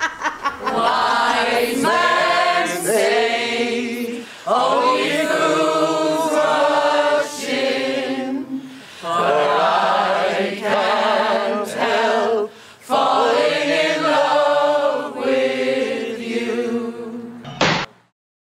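A song with singing voices, sung in phrases with short breaks between them. It cuts off abruptly just before the end.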